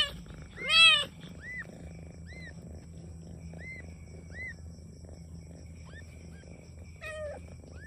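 A cat gives one short meow about a second in, then a newborn kitten mews over and over in faint, high-pitched squeaks about once a second, with another short meow near the end.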